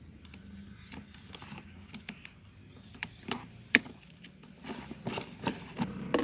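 Irregular light metallic clicks, with a run of fine, rapid ratchet-like ticks about two-thirds of the way through, from bicycle parts being handled.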